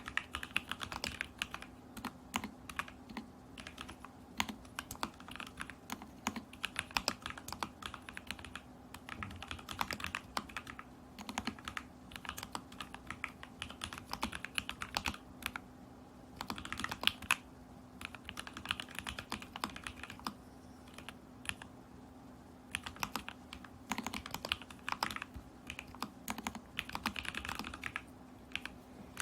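Continuous typing on a custom mechanical keyboard in a stacked acrylic case, with lubed and filmed Lavender switches, a taped PCB and Polycaps Whale keycaps: a steady patter of keystrokes in uneven runs, with denser flurries now and then and short pauses. A faint steady hum lies underneath.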